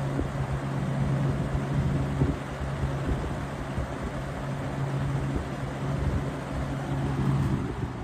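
Lasko 20-inch box fan (model 3723WMC) running: a steady low motor hum under the even rush of air from the blades.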